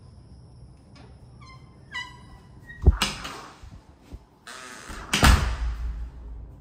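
An interior door with a knob latch being opened: a brief squeak, then a sharp click about three seconds in and a second knock about two seconds later, each followed by a short brushing rush.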